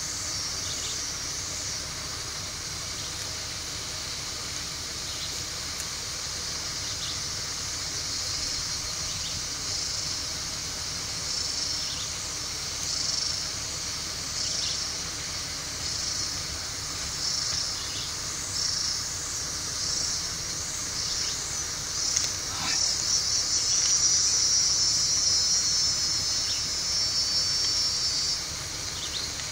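Insects buzzing in a steady high chorus that pulses roughly once a second and swells louder for several seconds near the end.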